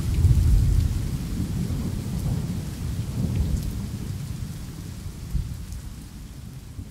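Thunder rumbling deep and low over steady rain, slowly fading out.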